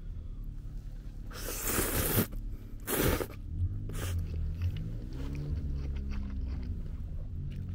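Ramen noodles being slurped twice, the first slurp longer and louder and the second short, with a brief third sound a little later.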